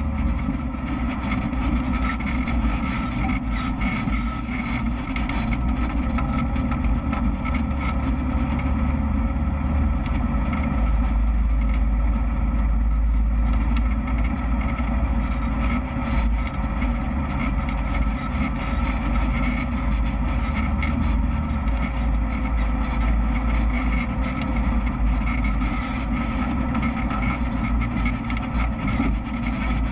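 Off-road vehicle engine running steadily while riding a dirt trail, with a heavy low rumble underneath.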